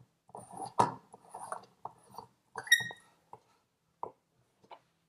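LED light bulb being screwed by hand into an E27 socket: its threaded metal base grates and clicks in the socket threads in short, irregular bursts, with a brief ringing ping about halfway through. Toward the end only a few single clicks remain as the bulb seats.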